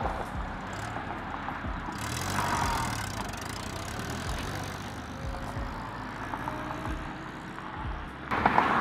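1948 Willys CJ2A jeep's Go Devil flathead four-cylinder engine pulling away from a standstill and driving off down the road. Near the end the engine sound jumps suddenly louder.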